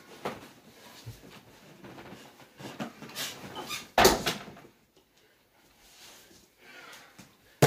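Windmill dunk on an over-the-door mini basketball hoop: a loud bang with a short rattle about four seconds in as the ball is slammed through and the jumper comes down, after some shuffling and bed noise, with another sharp knock near the end.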